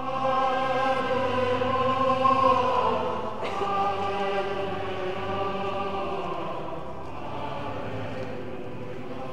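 Cathedral choir of boys' and men's voices singing sustained sacred music. It enters suddenly at the start, is loudest for about the first three seconds, then carries on softer.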